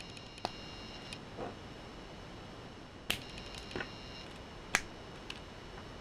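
Small Lego plastic pieces clicking as they are handled and pressed together, and a rubber tyre pushed onto its hub and wheels fitted onto axle pins: about six sharp, separate clicks, the loudest a little before the end.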